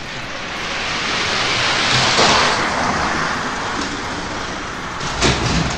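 Die-cast Hot Wheels cars rolling down a six-lane orange plastic track: a rushing, rumbling whir that swells about two seconds in and then tapers, with a few sharp clacks near the end as the cars reach the finish.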